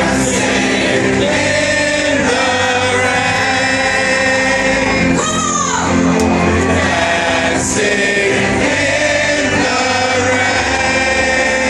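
Pop song performed live: a female singer's voice holding long, gliding notes over the backing music.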